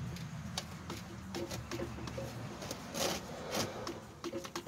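Wrench clicking and scraping on a car's oil cooler line fitting as it is worked loose, with scattered light metallic ticks and two louder scrapes about three seconds in, over a low steady hum.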